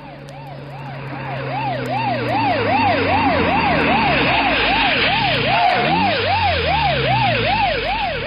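Police car siren wailing in quick up-and-down sweeps, about two and a half a second, over a vehicle engine. It grows louder over the first few seconds and fades near the end, like a patrol car pulling up.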